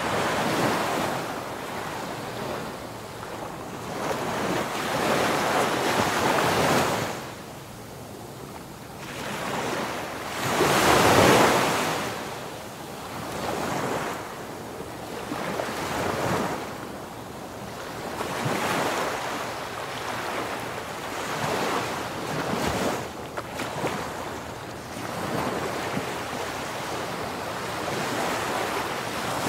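Rough sea: wind-driven waves breaking and rushing along a ship's hull in surges every few seconds, the loudest about eleven seconds in, with wind buffeting the microphone.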